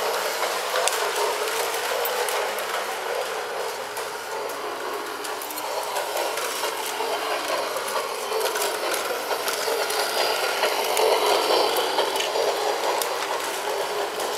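New Bright Holiday Express toy train running on its track: a steady mechanical whir from its motor with a fine clicking rattle of the wheels on the track.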